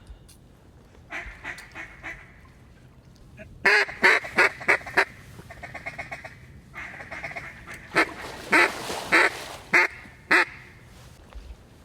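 Mallard hen duck call blown close by. A run of loud quacks is followed by a quick feed chatter, then a second run of loud quacks.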